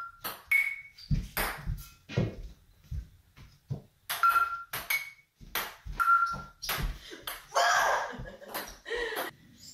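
A ping pong ball rallied back and forth with frying pans: each hit gives a short metallic ping from the pan, and between hits the ball clicks as it bounces on the kitchen-island countertop. About eight seconds in comes a louder, longer burst of noise.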